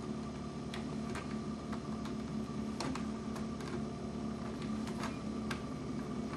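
Faint, irregular small clicks and ticks of solid copper house wires being handled and twisted together by hand into a splice, over a steady low hum.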